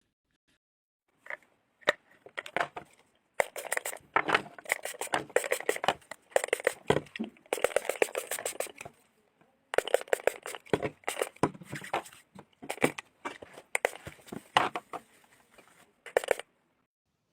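Slime being squeezed and pressed by hand, making dense runs of crackling, popping clicks. It starts about a second in, breaks off briefly twice and stops just before the end.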